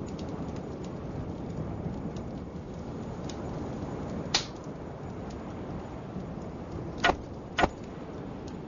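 Film soundtrack ambience: a steady low rushing noise, broken by three sharp hits, one about four seconds in and two close together near the end.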